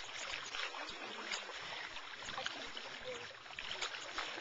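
Swimming-pool water sloshing and lapping with many small splashes, stirred up by a toddler climbing onto an inflatable float.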